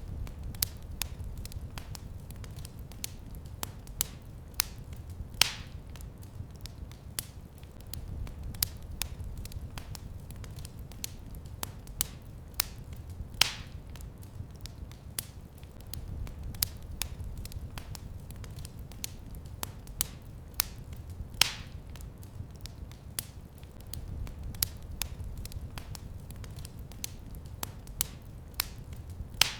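Wood fire crackling in a fireplace: a constant scatter of small sharp crackles over a low steady rumble, with three louder pops about eight seconds apart.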